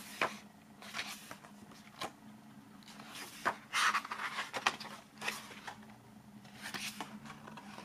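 Paper pages of a softcover photo book being turned by hand: a series of short, soft paper rustles and flaps at irregular intervals.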